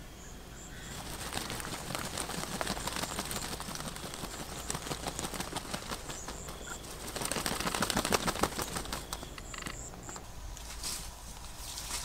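Muscovy ducks stirring and flapping their wings among wet grass and mud, a dense fluttering rustle that swells about seven seconds in. A few short, high bird chirps come through near the start and again near the end.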